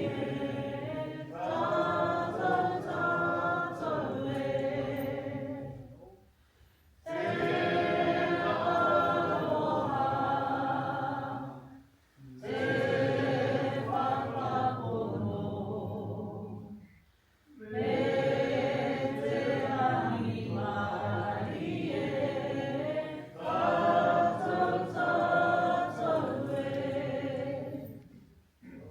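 A group of voices singing together, unaccompanied, in phrases of several seconds with short breaks between them: a waiata sung in support of a speech at a pōwhiri.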